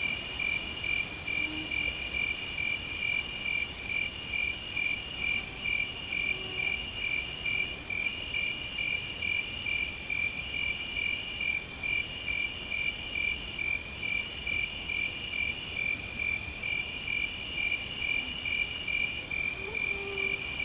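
Insect chorus in summer: a cricket trilling in fast, even pulses, with a higher, hissing insect song that breaks off and starts again every few seconds.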